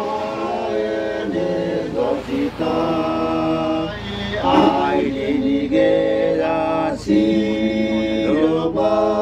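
Voices singing a slow chant in a local language, in long held notes joined by upward slides in pitch.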